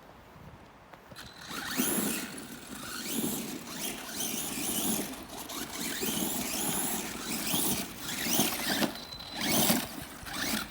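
1/8-scale Himoto Raider off-road RC car running in repeated throttle bursts, its electric motor whining up and down in pitch over a scraping, rushing noise from the tyres on rough ground.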